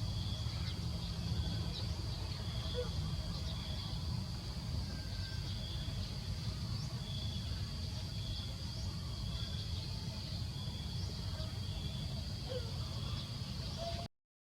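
Forest ambience: insects keep up a continuous high shrill, with a second insect note pulsing on and off about once a second and a few faint chirps, over a low rumbling background. The sound cuts out briefly near the end.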